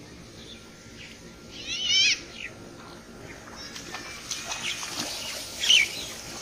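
Birds calling outdoors: a quick rapid trill about two seconds in and a loud sharp call near the end, with scattered shorter chirps between.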